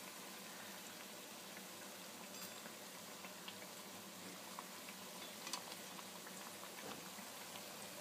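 Urad dal bhallas deep-frying in oil in a kadai at medium heat: a steady soft hiss with small crackles, and a few light clicks as a metal spoon turns them in the pan.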